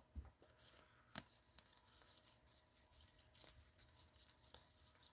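Faint clicking and rustling of plastic toploaders knocking and sliding against each other as a stack of sleeved baseball cards is flipped through by hand, with one sharper click about a second in.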